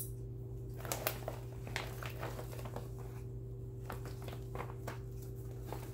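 Faint rustling and scattered small clicks of a stitching project and its materials being handled, over a steady low hum.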